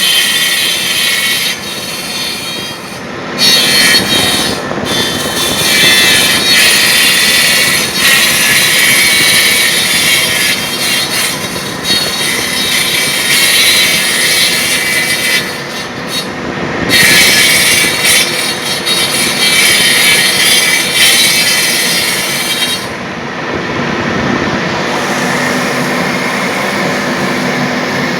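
Copy lathe for wood turning a baluster: a loud, steady machine noise with a high, hissing cutting sound of the tool on the spinning wood. The cutting breaks off briefly a few times, then stops near the end while the machine keeps running.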